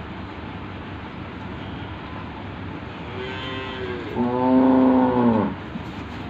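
Cattle mooing twice, about three seconds in: first a quieter call, then a louder, lower one lasting over a second, each dropping in pitch as it ends.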